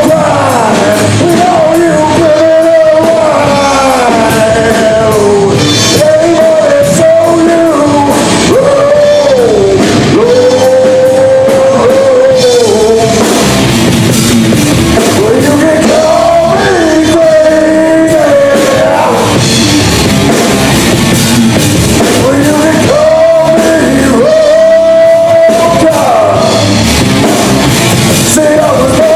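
Live rock band playing loudly: sung vocals with long held notes over electric guitars, bass and a drum kit.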